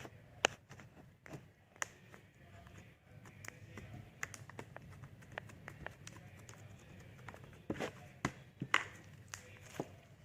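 Hands handling homemade slime, making scattered sharp clicks and taps, with a few louder ones, over a low steady hum.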